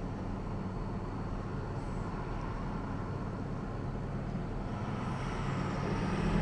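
Engine of a Ford F-450 brush truck towing a trailer, a steady low hum as it pulls away from the station, growing louder near the end as it draws close.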